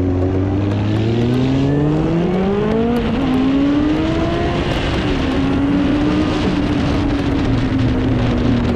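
Sport motorcycle engine heard from the rider's own bike, accelerating with a rising pitch for about three seconds. The pitch drops suddenly at a gear change, climbs briefly, and then settles into a steady, slowly falling note as the bike cruises.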